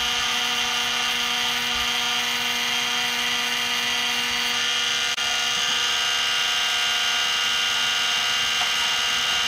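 Benchtop mini metal lathe running at speed: a steady high whine from its motor and gear train while the tool cuts metal and throws chips.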